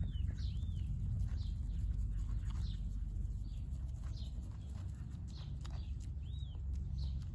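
Young goat cropping and chewing fresh grass close to the microphone, with short tearing and clicking sounds over a steady low rumble. Small birds chirp now and then in the background.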